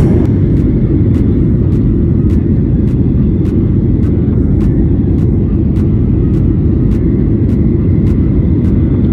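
Jet airliner cabin noise: the steady, loud low rumble of the engines and airflow heard from a window seat in flight.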